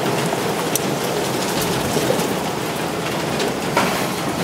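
Steady, even hiss of rain, with a few faint ticks.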